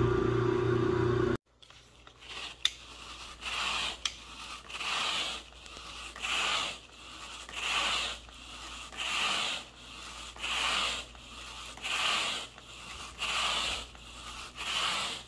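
A carpet-cleaning machine's motor hums and cuts off abruptly about a second and a half in. After a couple of sharp clicks, a carpet grooming rake is dragged through the carpet pile in regular swishing strokes, about one every second and a half.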